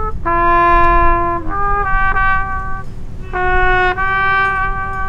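A trumpet played solo: a slow tune of long held notes, with one note changing to the next every second or so. The last note is held for well over a second.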